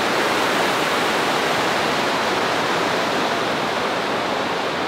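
Fast, rocky mountain river rushing as a steady, unbroken wash of whitewater.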